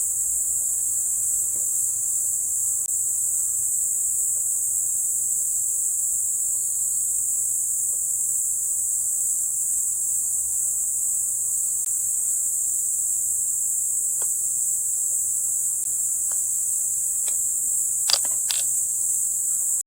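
A chorus of crickets chirping: a steady, high-pitched, unbroken trill. A few short clicks come near the end.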